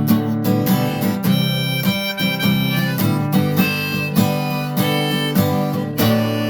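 Harmonica in G playing over strummed acoustic guitar.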